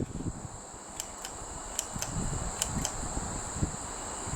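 Steady high chirring of crickets over the low running noise of Hunter Original ceiling fans, with a few sharp clicks in the first three seconds as the fans are switched up to high speed.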